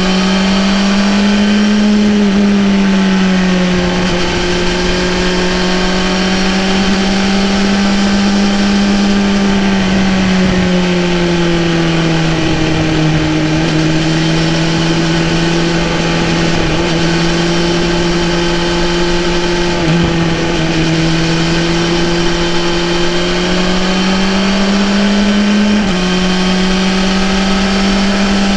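2018 BMW S1000RR's inline-four engine running while riding at a fairly steady speed, its pitch drifting gently up and down with the throttle and stepping up abruptly about 26 seconds in.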